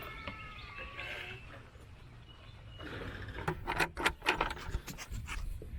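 A goat bleats once, a wavering call in the first second. Several sharp knocks and rattles follow a few seconds later.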